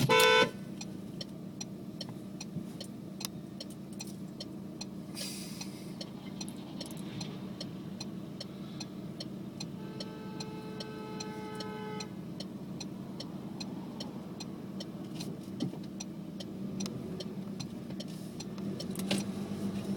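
Car engine idling with a regular ticking knock. A short, loud pitched tone sounds at the very start, and a softer steady tone sounds for about two seconds midway.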